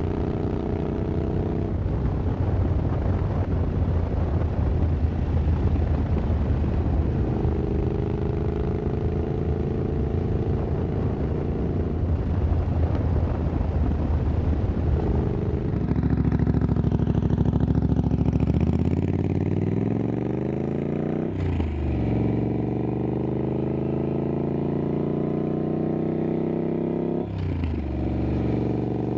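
Triumph Scrambler 900's parallel-twin engine running through an aftermarket exhaust while riding. It holds a steady cruise under a rumble of wind, eases off about halfway through, then accelerates with the pitch rising and drops suddenly at two upshifts near the end.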